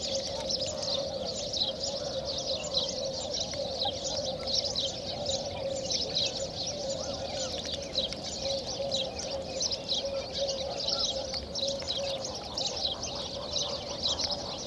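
A dense chorus of many small birds chirping continuously, thick and unbroken, over a steady hum.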